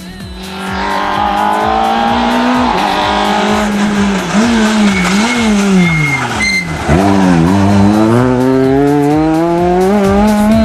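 Rally car engine revving hard as it approaches. Between about four and seven seconds in the revs drop in several falling sweeps as it brakes and downshifts for a hairpin, with a brief tyre squeal. It then accelerates away with the revs climbing steadily.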